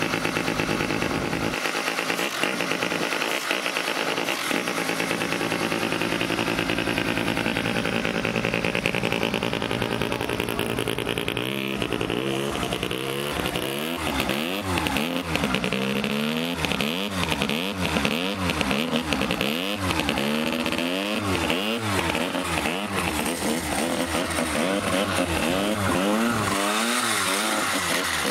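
RENNtech SLR racing kart's two-stroke engine running on its stand while warming up after a cold start. It first holds a steady high idle, then from about halfway is revved up and let fall again roughly once a second.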